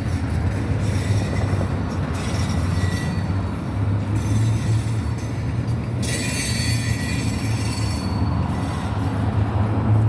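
Passenger train running, heard from on board as a steady low rumble. About six seconds in, a high-pitched wheel squeal lasts for about a second.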